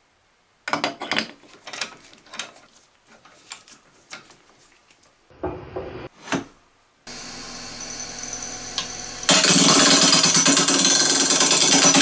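Handling clicks and knocks as a pine blank is fitted into a metal lathe chuck and the tailstock is brought up, then a Nova wood lathe starts and runs with a steady hum about seven seconds in. A couple of seconds later a much louder steady rushing noise takes over.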